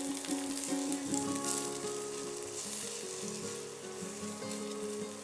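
Beaten eggs sizzling in hot oil in a nonstick wok, stirred and scrambled with a silicone spatula, over soft background music of held notes.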